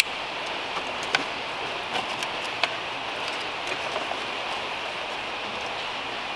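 A few short, sharp plastic clicks and handling noises as the engine control unit's wiring connector is worked loose, over a steady background hiss.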